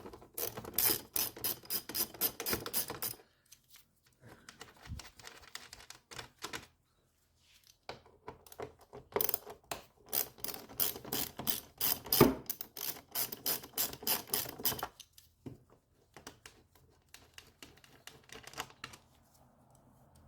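Socket ratchet wrench clicking in quick runs as it turns the 8 mm bolts on the air filter housing. There are two main stretches, at the start and again from about 8 to 15 seconds in, with quieter clicking between them.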